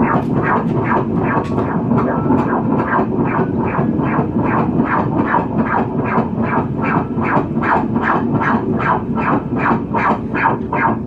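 Ultrasound machine's Doppler audio of a 28-week fetus's heartbeat: a fast, even pulse of about two and a half beats a second over a steady noise.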